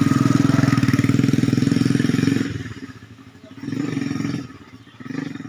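An engine running steadily. It falls away about two and a half seconds in, then rises again briefly twice.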